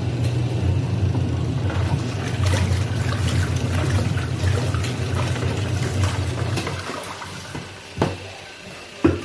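Fujidenzo JWT-601 twin tub washing machine running with water in the tub: a steady motor hum under churning, sloshing water. Near the end the sound eases off, and there are two sharp knocks about a second apart.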